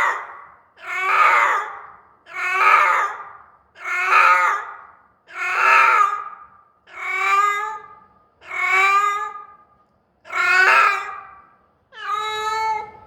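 A very old cat yowling over and over: about nine long, drawn-out calls, one every second and a half or so, the later ones clearer and more tuneful. It is the loud, anxious crying of an elderly cat that probably has dementia.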